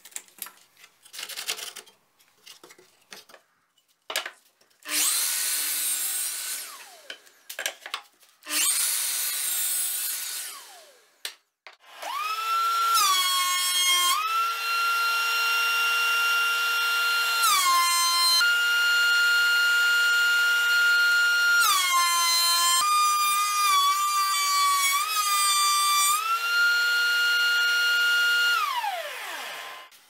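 Woodworking jointer-planer machining larch boards. A few light knocks come first, then two short loud cutting passes, each followed by the cutterhead winding down. About twelve seconds in, the motor spins up to a steady whine that drops in pitch each time a board is fed through under load, and it winds down near the end.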